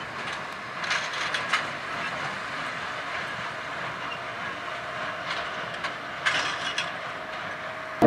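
Tractor-drawn small square baler and bale bundler working in a hayfield: a steady mechanical rumble and hiss with a few short bursts of clanking and rattling from the machinery.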